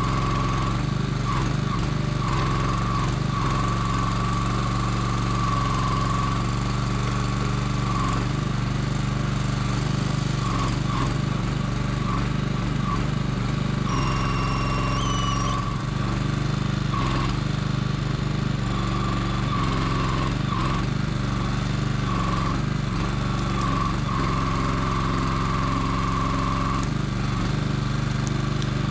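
Small engine running steadily to drive the Kranman log loader's hydraulic crane, with a higher whine that rises and drops every second or two as the crane is worked. A brief high whistle sounds about halfway through.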